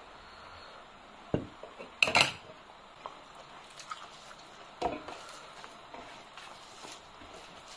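Brass bowls and plates clinking and knocking against one another as they are handled and set down, a few times. The loudest is a sharp, ringing metallic clink about two seconds in. Between the clinks there are small soft sounds of rice being mixed by hand.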